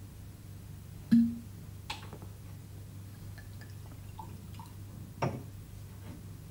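Things being handled at a cabinet: a sharp knock about a second in, a lighter click, a few small clinks, and another knock a little after five seconds, over a steady low hum.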